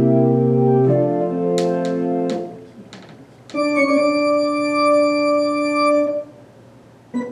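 Baldwin HT2 electronic organ playing held chords. A deep pedal bass note sounds under the first chord, which changes about a second in and breaks off after about two and a half seconds, with a few sharp clicks. A brighter chord without the bass is then held for about two and a half seconds.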